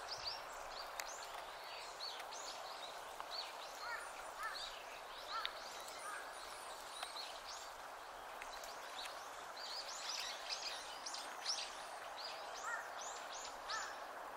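A flock of long-tailed tits calling, many short, thin, high chirps overlapping, growing busier in the second half. A steady background noise runs underneath.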